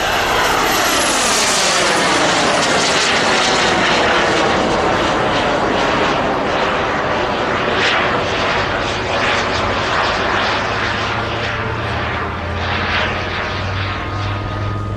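Two Carf F-100 Super Sabre model jets, each with a small turbine engine, flying past in formation: a loud jet whine and rush that falls in pitch as they pass overhead in the first few seconds, then carries on steadily.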